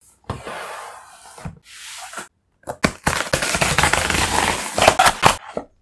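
Packaging handled by hands: rustling and crackling with sharp clicks, in short stretches at first, then a longer, louder crackling run from about three seconds in.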